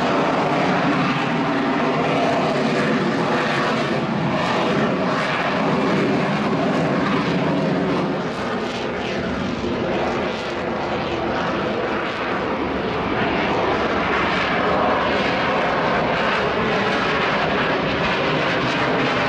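Harrier II jump jet's Pegasus turbofan running at high power in slow, jet-borne flight with its exhaust directed downward: steady jet noise with several steady whining tones, easing slightly for a few seconds around the middle.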